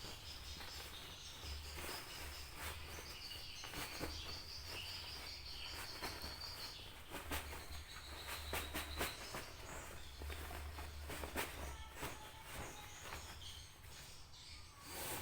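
Insects trilling in a steady high tone for several seconds at a time, with scattered light clicks and knocks throughout.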